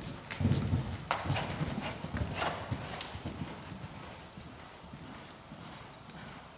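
Hoofbeats of a ridden horse on soft sand arena footing: a run of low thuds, loudest in the first three seconds and then fading as the horse moves off. There are a couple of sharper, brief sounds about one and two and a half seconds in.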